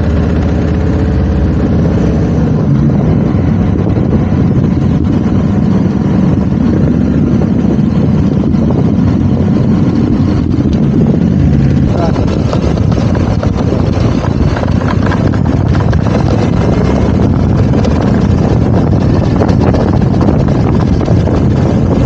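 Motorcycle engine running under the rider, heard steadily and loudly from the bike itself. From about halfway, wind noise on the microphone joins it as the bike rides along.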